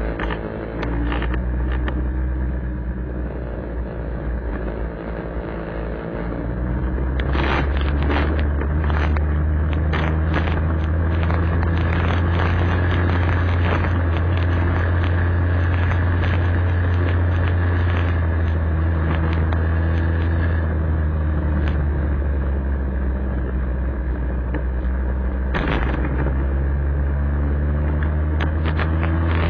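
Vespa scooter engine running while riding, its note changing pitch over the first couple of seconds, then louder and steady from about seven seconds in. Scattered sharp thumps sound over it, a cluster about seven to twelve seconds in and another near the end.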